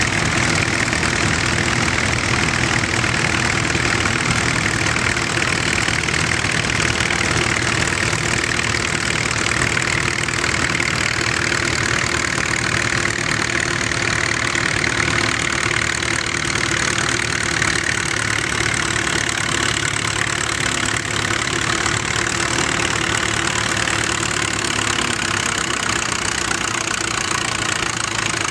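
Antique farm tractor engine running steadily at low speed, with no revving or change in level.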